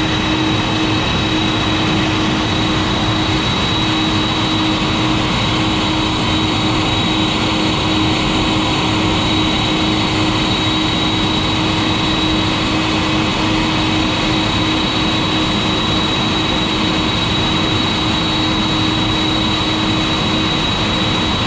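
Boeing 747-400's General Electric CF6 turbofans running at idle after engine start: a steady, loud rush with a high whine over it and a lower steady hum.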